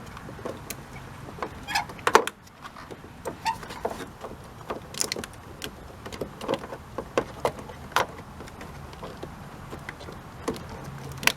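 Irregular plastic clicks and knocks as the front turn signal bulb socket of a Kia Spectra is twisted and worked loose from the headlight assembly by hand. A low steady hum comes in near the end.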